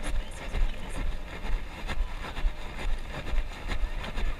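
Wind rumbling on an action camera's microphone, with regular low thumps about twice a second from the wearer's footsteps on the asphalt track.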